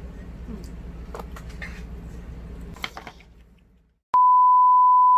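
A steady, loud, single-pitch beep tone starts suddenly about four seconds in and holds. It is the kind of bleep tone an editor adds to a video. Before it there is a low hum with a few faint clicks, fading out to silence just before the beep.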